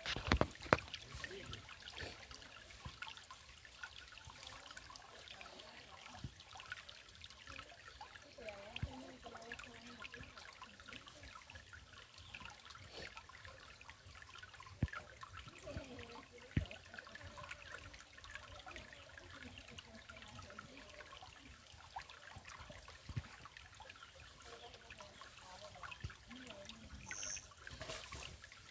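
Water trickling steadily, with many small scattered clicks and splashes.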